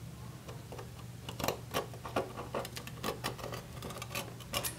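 Heated tip of a Fuse tool drawn slowly along the edge of its guide to melt-seal a plastic sleeve: irregular small scratching clicks.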